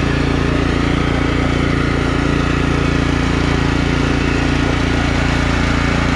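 Kohler Command engine of a Scotts by John Deere lawn tractor running steadily under way, its note holding an even pitch and level.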